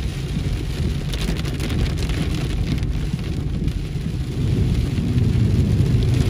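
Heavy rain pouring down, a steady dense noise with a strong low rumble underneath.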